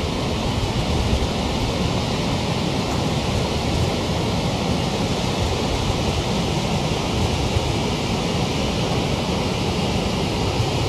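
Steady rushing of water flowing through a reservoir dam, the flow raised by several days of heavy rain.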